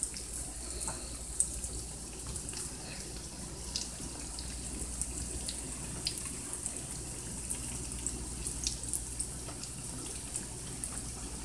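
Cornmeal-coated salmon croquettes frying in a skillet of hot oil: a steady sizzle with many small scattered pops and crackles.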